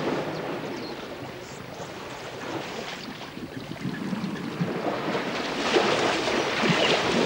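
African elephants splashing and wallowing in a shallow muddy waterhole: water sloshing and slapping, growing louder toward the end.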